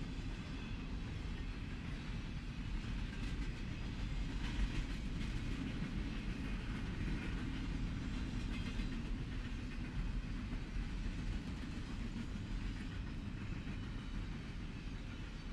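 Double-stack intermodal freight train's container well cars rolling steadily past, a continuous low rumble of wheels on rail.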